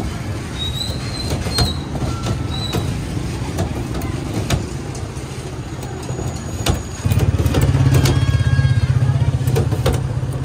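Steady low rumble of street traffic. About seven seconds in, a nearby engine gets louder with a rapid, even throb. Short clicks and scrapes sound over it throughout.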